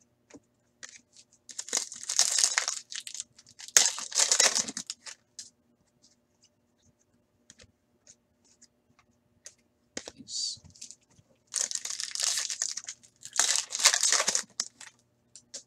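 Foil hockey-card pack wrapper being torn open and crinkled in four bursts, two in the first five seconds and two near the end, with small clicks of cards being handled in between.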